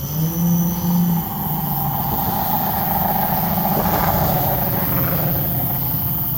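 A car passing on the street, its engine and tyre noise swelling to a peak about four seconds in, then easing off.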